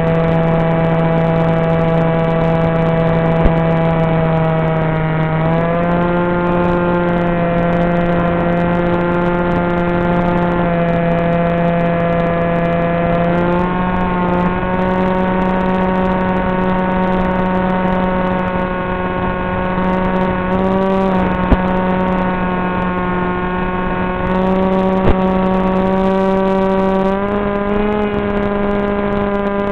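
Brushless electric motor and propeller of a Wing Wing Z84 flying wing (Turnigy 2826 2200kv motor) whining steadily in flight, its pitch stepping up a few times with throttle changes. Three short clicks are heard.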